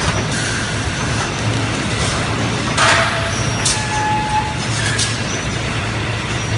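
Steady din of a factory packaging line, with pick-and-place robots and conveyors running over a low hum. A short hiss comes about three seconds in, and a brief high tone follows about a second later.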